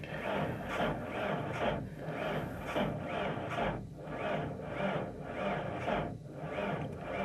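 1993 Ford Ranger's starter cranking the engine slowly in deep cold, about two labouring compression pulses a second, without the engine catching. The owner suspects a faulty sensor that doesn't give enough fuel when it is this cold.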